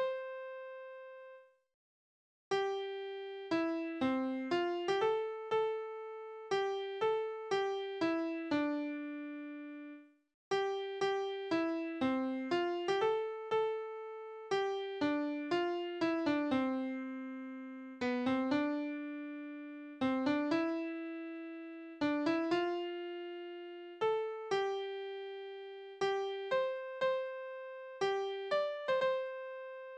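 Software piano playback from the Crescendo notation program, picking out a school song's melody one note at a time at a steady tempo. The tune ends on a held note, stops for about a second, then starts again from the beginning.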